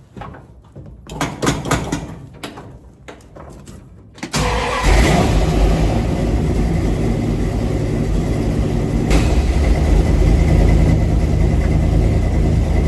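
A few clicks and knocks, then the 1968 Dodge D100 pickup's engine starts about four seconds in and settles into a steady idle.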